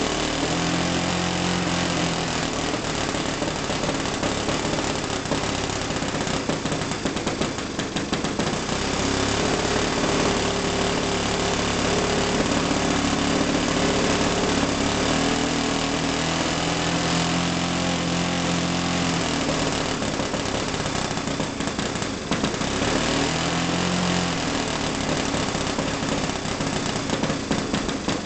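Saito 100 four-stroke glow engine with a Keleo exhaust running steadily during break-in, its speed drifting up and down slightly a few times.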